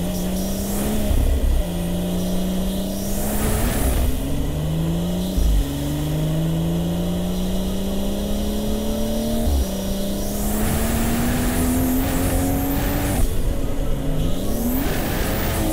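Big-turbo BMW M240i's turbocharged straight-six under hard acceleration, pulling through the gears: the engine note climbs steadily for a few seconds, then drops sharply at each upshift, about five times.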